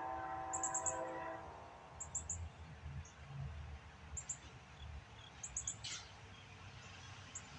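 A locomotive air horn sounding a steady chord, which stops about a second and a half in. After it come short, high bird chirps in small groups over a low rumble.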